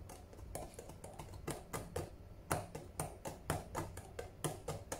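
Fingertips drumming on the clear plastic lids of two instant food cups: a quick, slightly uneven run of light taps, about four a second, a little louder from about halfway through.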